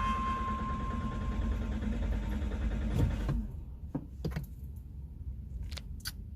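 Toyota Rush engine being cranked on a hard start, a steady mechanical drone that cuts off about three seconds in. A few light clicks follow.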